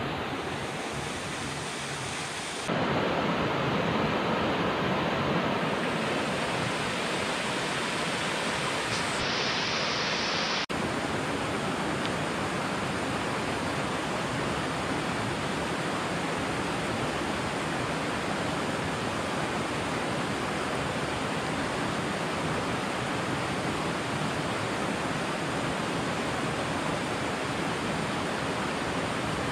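Steady rush of water in a rocky mountain stream with a small cascade. It gets louder and fuller about three seconds in and changes character again about eleven seconds in.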